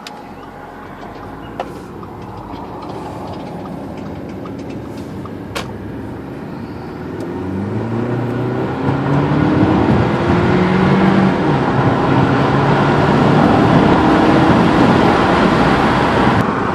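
Inside a 2009 Audi A4 as it accelerates under part throttle: the engine note climbs and grows louder from about seven seconds in, with a gear change along the way, over steady road noise. No clicking is heard under acceleration. Before the car speeds up there are two single sharp ticks a few seconds apart.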